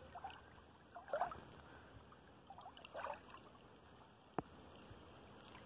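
Shallow water lapping gently over sand, with a few soft little splashes and one sharp click about four and a half seconds in.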